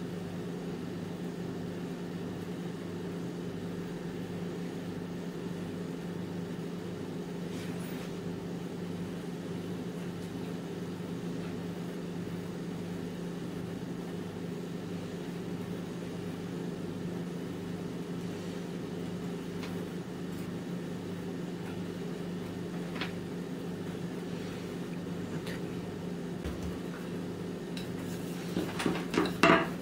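A steady low mechanical hum with a faint handling sound of dough. Near the end come a few sharp knocks as a wooden rolling pin is picked up and set down on a silicone baking mat.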